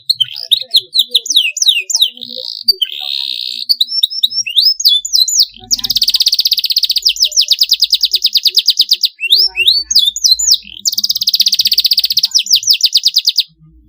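Domestic canary singing: quick rising and falling whistled notes, then a long, rapid, even trill about six seconds in and another about eleven seconds in.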